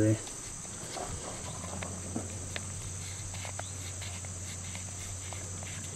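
Steady high-pitched insect trilling, with a few faint clicks from the plastic earmuffs being handled.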